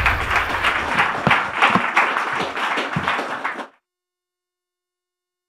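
Audience applauding, many hands clapping at once, cut off suddenly about three and a half seconds in.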